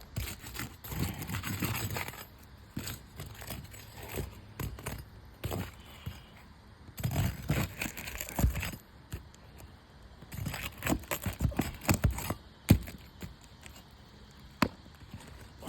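Scraping, crackling and irregular clicking of a metal roof snake prying under asphalt shingles to work the nails out without breaking the shingle. The loudest sound is a single sharp knock about three-quarters of the way through.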